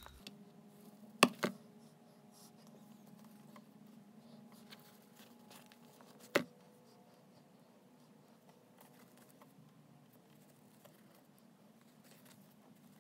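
Faint scratching and handling as a utility knife cuts back the outer sheathing of a TV power cord, with two sharp clicks about a second in and another about six seconds in.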